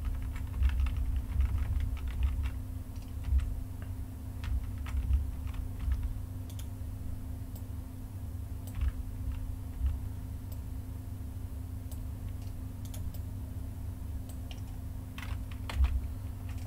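Irregular keystrokes and clicks on a computer keyboard and mouse, coming in small clusters, over a steady low hum.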